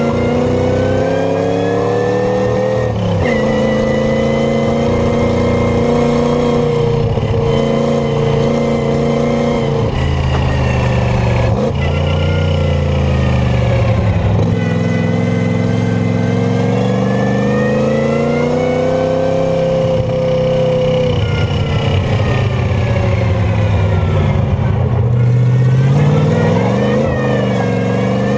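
Packard 356-cubic-inch straight-eight flathead engine running under load, heard from the open cockpit. Its revs climb and fall repeatedly, with a few sudden drops in pitch.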